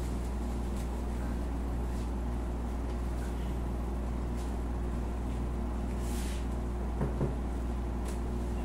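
A steady low hum with a few faint rustles and soft taps about seven seconds in.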